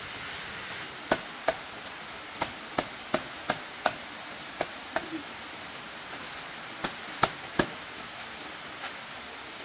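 Hand tool striking wood: about a dozen sharp chops in irregular groups over a steady hiss.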